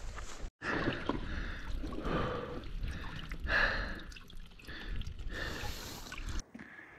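Water dripping and trickling from a rock seep into a plastic bottle held under it, with a person breathing, several breaths about a second apart.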